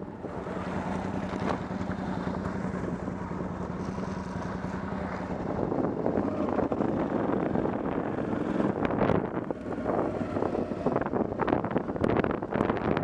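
Motorcycle engine idling steadily, then pulling away and riding along a rough dirt track: engine, tyre rumble and wind buffeting the microphone, with a few sharp knocks from bumps in the second half.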